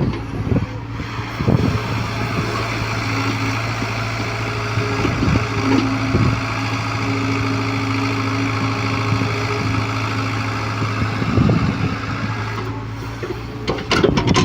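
Hyundai excavator's diesel engine running steadily, with a higher steady tone over it through the middle and a few sharp knocks near the end.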